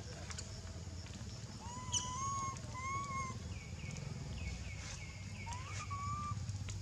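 Baby macaque crying: three drawn-out, wavering cries, with a run of short, higher falling squeaks between them and a steady low hum underneath.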